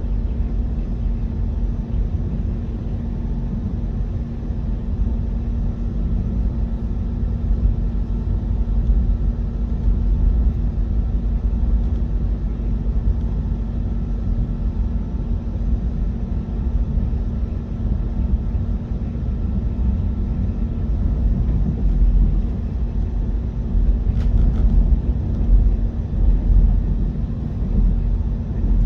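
Steady low rumble of a KTX-EUM electric train running, with a constant low hum and a few faint clicks near the end.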